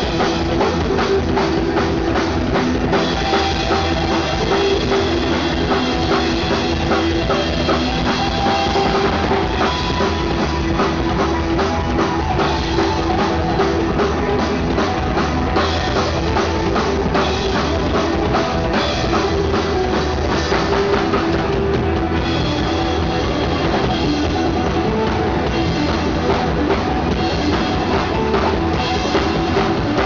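Live three-piece rock band playing an instrumental passage, with the drum kit out front: a dense run of fast drum hits over held guitar and bass notes.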